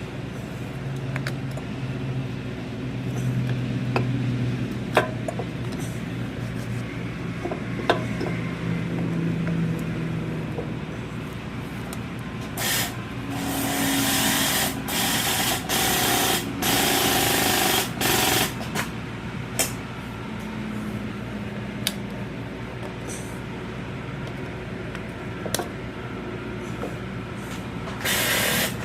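Shop work with power tools: scattered clicks and knocks over a low hum, and several loud hissing bursts around the middle and again near the end, like a pneumatic tool or compressed air.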